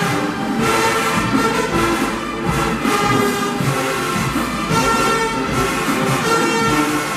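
Marching band playing: a full brass section of sousaphones, trumpets and other horns sounding held chords that change every second or so, with drums underneath.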